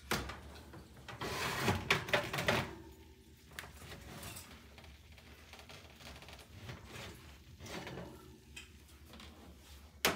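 Oven door pulled open with a clatter of metal knocks, followed by quieter scrapes and clinks as a metal baking sheet is drawn off the oven rack and set on the electric stovetop. A sharp click near the end.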